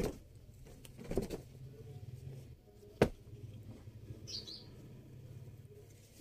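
Cloth suit pieces being handled and laid out: faint rustling, with a single sharp click about three seconds in, over a low steady hum.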